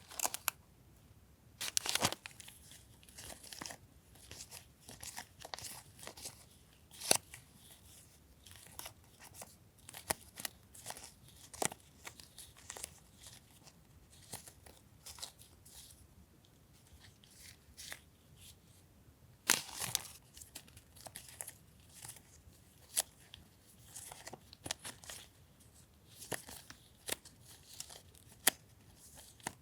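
Paper journaling supplies being handled: rustling and crinkling, with many scattered sharp taps and clicks. There are a few louder rustles, about 2 seconds in, about 7 seconds in and around 20 seconds in.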